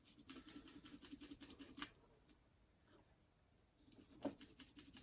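Quick, scratchy scrubbing strokes as the hairdryer's circuit board is cleaned with isopropyl alcohol around the mains cable's solder pads. About two seconds of strokes come first, then a pause, then another short burst near the end.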